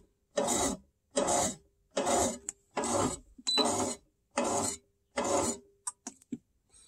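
Rasonic bread maker's kneading motor running in short pulses, roughly one every 0.8 s, turning the paddle in the empty pan. A short beep sounds about halfway through as a control-panel button is pressed, and a few small clicks follow near the end.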